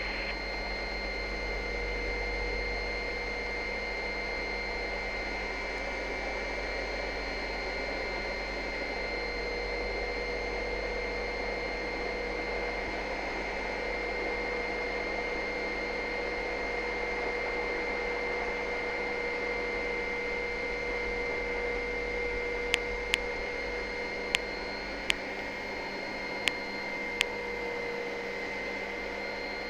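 Helicopter engine and rotor noise heard through the cabin intercom: a steady hum with constant whining tones as the helicopter comes in and sets down on the snow. Near the end there is a run of about seven sharp clicks.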